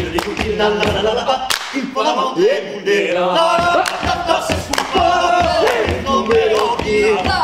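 Male vocal group singing Occitan polyphony a cappella, backed by hand claps and foot stomps on wooden boards. The low stomping drops out for about two seconds after the first second and a half, then returns while the singing goes on.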